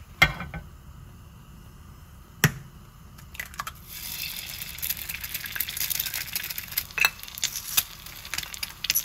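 Egg frying in oil in a rectangular frying pan: two sharp knocks, then sizzling with many fine crackles starts about four seconds in, when the egg goes into the hot pan, and keeps on.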